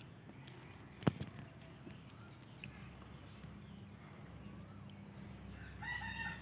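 Faint garden ambience: a short high chirp repeating about once a second, a single sharp click about a second in, and a short bird call near the end.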